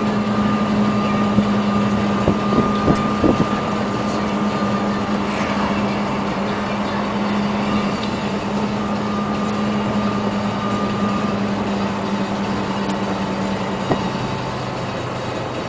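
UD Trucks Quon's diesel engine droning steadily at cruising speed, heard from inside the cab along with road noise. A few light clicks come about two to three seconds in and once near the end, and the engine's note drops lower near the end.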